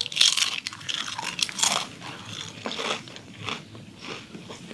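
A person biting and crunching a potato chip close to the microphone. Loud, dense crunches come in the first two seconds, then quieter, sparser chewing crunches.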